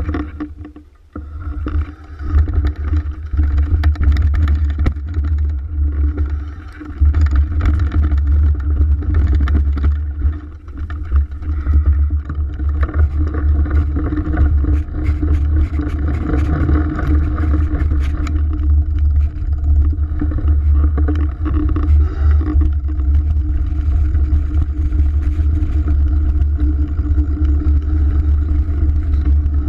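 Mountain bike descending a dirt singletrack at speed: heavy wind rumble on the camera microphone over tyre noise on dirt, with the bike rattling and clattering over bumps. It picks up about two seconds in as the bike gathers speed.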